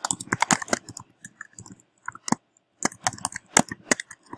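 Typing on a computer keyboard: quick runs of keystroke clicks, with a short lull about halfway through before another burst.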